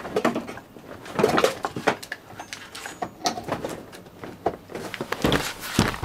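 Irregular small clicks, taps and knocks of hands and tools handling the parts of an opened iPad 2, with a few heavier thumps near the end.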